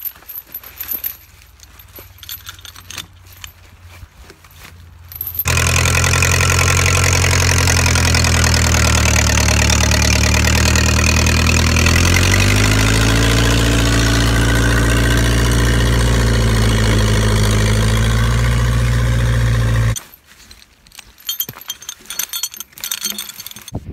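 A steel log chain clinks and rattles as it is wrapped around a log. About five seconds in, a tractor engine comes in loud and runs steadily for about fifteen seconds while pulling the log out, its pitch dipping and rising again midway under load, then cuts off abruptly.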